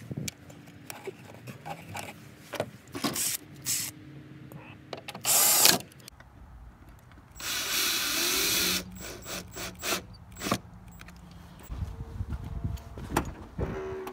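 Handling clicks and knocks of plastic taillight parts, with a power drill/driver running twice, briefly and then for about a second and a half, as the taillight assembly is screwed into place.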